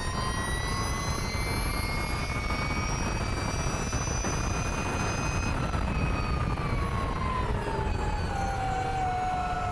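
Ducati V21L MotoE electric racing motorcycle's motor whining at speed on track, its pitch rising slowly as it accelerates, then falling over a few seconds from about halfway as it slows into a corner, with wind rushing underneath.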